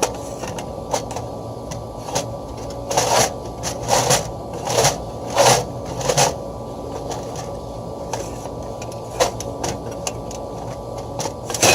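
Scraping and knocking as an old exhaust-fan motor is worked loose, with a run of about five strong scraping strokes in the middle, over a steady mechanical hum.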